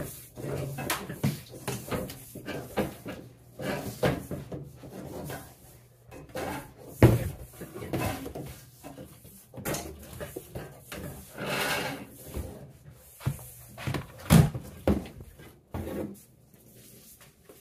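Thick 6/3 electrical cable being pushed and pulled by hand, scraping and knocking irregularly against wood, with clothing rustling close to the microphone. The sharpest knocks come about halfway through and again near the end.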